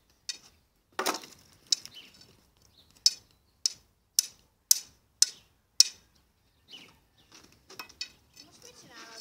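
A thin wooden stick tapping on a pile of cut branches: a series of sharp wooden taps, settling into about two a second for a few seconds in the middle.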